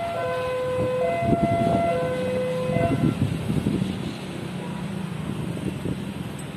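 Level-crossing warning alarm sounding an alternating high-low two-tone, stopping about three seconds in as the crossing clears. Under it runs the low rumble of the passing CC 206 diesel locomotive and road traffic.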